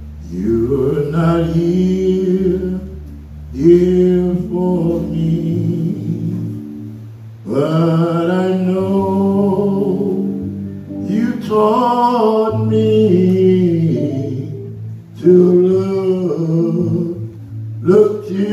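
A voice singing a slow gospel song in long held phrases, each a few seconds long, over instrumental accompaniment with a steady low bass line.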